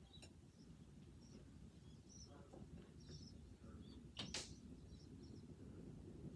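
Near silence: a Hunter Pacific Intercept 2 ceiling fan running quietly, heard as a faint low hum. A few faint high chirps sound throughout, and one short sharp noise comes about four seconds in.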